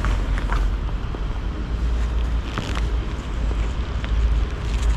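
Wind buffeting the microphone: a steady, uneven low rumble, with a few faint clicks near the start and again about halfway through.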